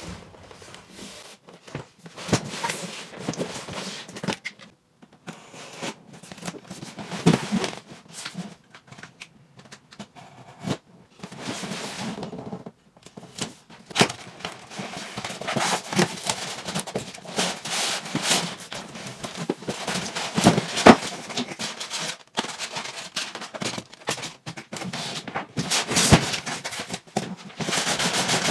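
A large cardboard box being handled and its lid opened: irregular scraping and rustling with sharp clicks and knocks.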